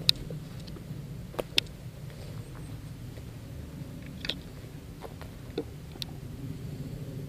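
A few sharp clicks and knocks, about six scattered through, over a steady low rumble.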